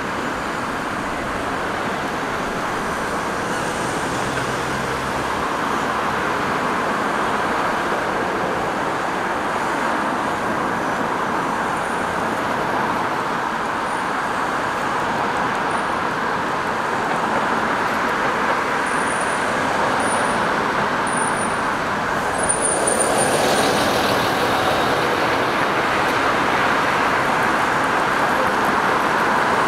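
Road traffic: cars and city buses passing on a wide multi-lane street, a steady traffic noise, with a few short high chirps in the second half.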